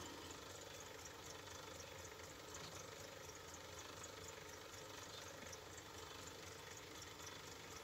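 Small metalworking lathe running faintly and steadily, its chuck spinning while a drill bit fed from the tailstock bores the centre of a cast iron cylinder cover, with light regular ticking over the hum.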